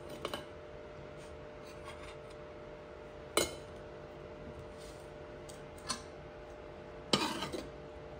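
Steel serving spoon clinking and scraping against a ceramic plate as rice is served: a few separate sharp clinks, the loudest about three and a half seconds in, and a short rattling run of clinks near the end, over a faint steady hum.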